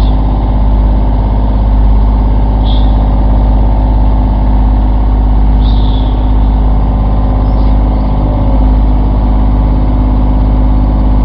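Fishing boat's motor running steadily under way, a loud constant drone with heavy low rumble. Three short seagull calls sound over it, about a quarter, halfway and two-thirds of the way through.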